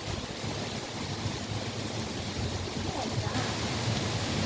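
Heavy rain falling steadily in a downpour, an even, dense hiss.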